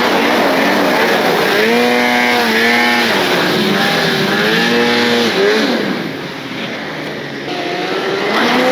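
Snowmobile engine revving hard, its pitch rising and falling repeatedly with the throttle. It eases off about six seconds in, then climbs again near the end.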